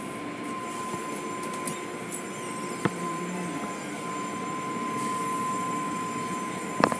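Automatic car wash tunnel running: a steady rush of water spray and spinning brushes. A thin, steady high whine runs alongside and cuts off near the end, with a brief knock about three seconds in.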